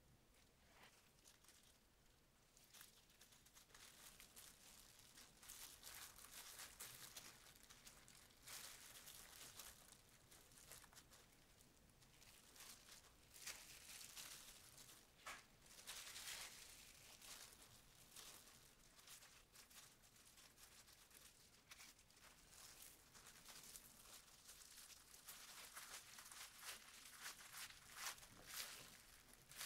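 Faint crinkling and rustling of disposable plastic gloves and a plastic-wrapped bamboo mat as hands pack fillings and roll gimbap, with small scattered clicks; it gets busier a few seconds in.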